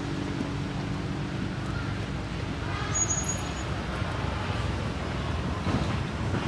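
Steady low rumbling background noise, with one brief high chirp about three seconds in.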